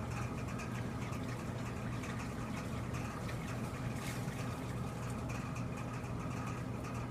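A machine running with a steady low hum.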